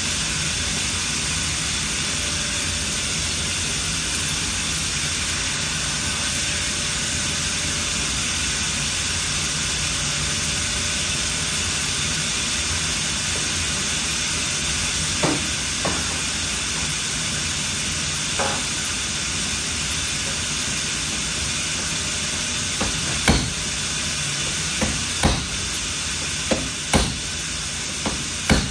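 A steady, loud hiss with a few sharp knocks about halfway through and a quicker run of knocks near the end.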